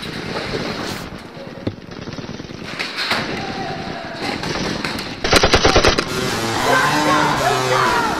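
A rapid burst of gunfire, several shots in under a second, about five seconds in. It is followed by wavering pitched sound, shouting or music.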